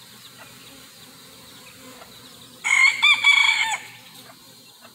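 A rooster crows once, a little over a second long, about two and a half seconds in, over the low hum of honeybees from an open hive.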